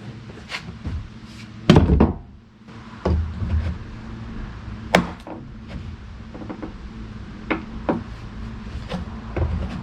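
Scattered knocks and thumps, one loud clatter about two seconds in and single knocks after it, over a steady low hum.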